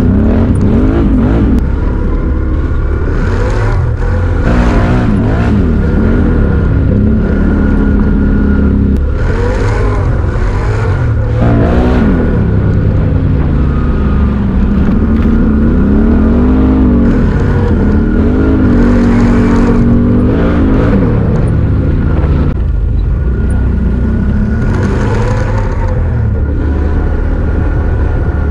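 Can-Am Renegade XMR 1000R's V-twin engine through an SLG Sniper Series slip-on exhaust, running under load on a trail ride, revving up and dropping back again and again with the throttle. It is loud throughout, with short noisy surges on some of the harder pulls.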